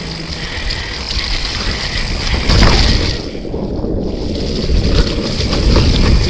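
Wind rushing over the microphone of a mountain bike descending a muddy dirt trail, with tyre rumble and scattered rattles and knocks from the bike over bumps.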